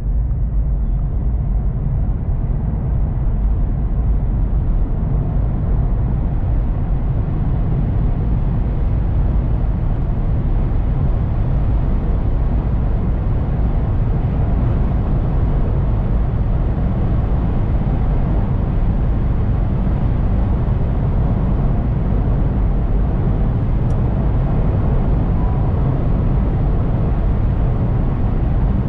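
Cabin noise inside a Honda e electric car under full acceleration in Sport mode, from about 60 to about 150 km/h: a steady low rumble of road and wind noise that grows brighter as speed builds, then holds as the car nears its top speed.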